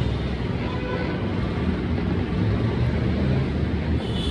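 Steady low rumble of a moving vehicle, with a few faint steady tones over the noise.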